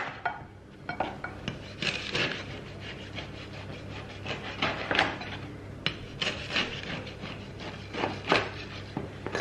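Kitchen knife sawing through a loaf of crusty bread on a wooden chopping board: repeated rasping strokes as the blade cuts the hard crust, with a few short knocks.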